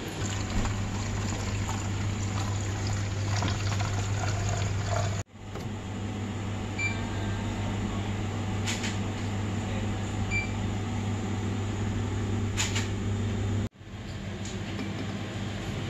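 Shop ambience with a steady low hum, a shopping trolley rolling along the aisle at first, then rice bran oil running from a dispenser tap into a bottle. The sound drops out abruptly twice, about five seconds in and near the end.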